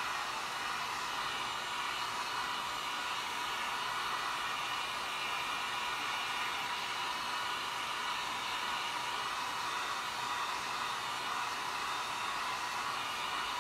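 Handheld hot-air blower running steadily, held over fresh screen-printing ink on a t-shirt to dry it; an even rushing hiss with no change in speed.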